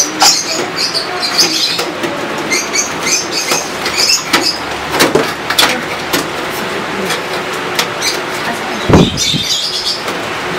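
A floppy drive being slid and pushed into a computer case's metal drive bay: irregular clicking, scraping and knocking of metal on metal, with a heavier knock about nine seconds in.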